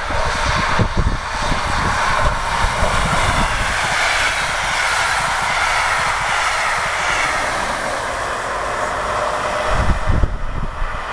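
Electric-hauled push-pull regional express passing at speed: Halberstadt-type coaches rushing and rumbling over the rails, swelling as the train goes by and easing as it moves away, with the DB class 112 electric locomotive pushing at the rear. Wind thumps on the microphone near the end.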